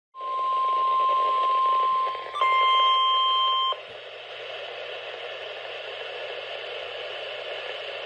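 NOAA Weather Radio 1050 Hz warning alarm tone from a Uniden weather radio's speaker, the signal that precedes a broadcast alert message. It is a steady single tone over radio hiss, dips briefly about two seconds in, is then joined by two higher tones, and cuts off suddenly before the middle, leaving faint radio hiss.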